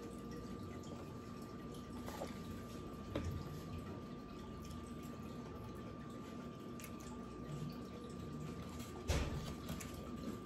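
Wet chewing and mouth sounds of someone eating a loaded taco, with a few light clicks of a fork against the taco shell and plate. A louder crunch comes about nine seconds in.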